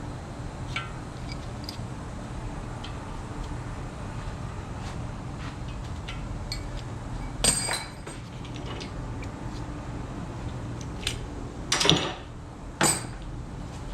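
Light metallic clicks and clinks as steel engine parts are handled during main bearing removal on an LS1 block, with three louder ringing metal clanks, one about halfway through and two close together near the end, over a steady shop hum.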